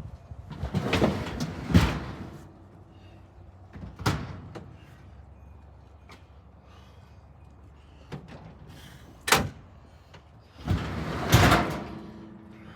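A run of clunks and scrapes, with a long scrape ending in a loud bang near the end, like a door or hatch being slid and shut.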